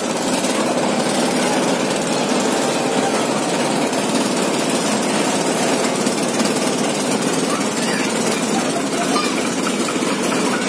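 Engine of the boat carrying the listener, running steadily and loudly with a fast, even chug, over the wash of water.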